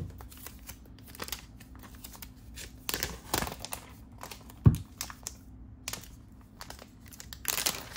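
Crinkling and peeling of thin backing liner as self-adhesive feet are taken off their sheet and stuck to the underside of a UniFi Gateway Max, with its plastic case handled in the hands. A single sharp knock comes a little before five seconds in.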